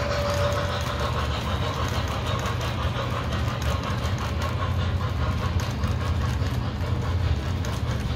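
O gauge model freight cars rolling past on three-rail track: a steady low rumble of wheels and motor with faint clicking as the wheels cross rail joints.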